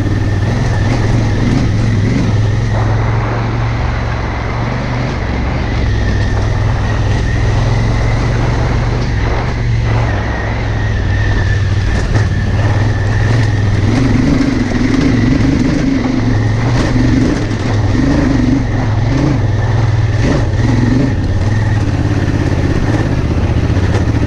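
Honda Africa Twin CRF1000L's parallel-twin engine running steadily while riding, under a constant rushing noise.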